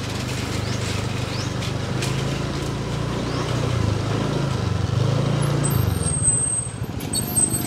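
Small motorbike engine running at low speed, its pitch rising a little and easing back a few times as the throttle changes.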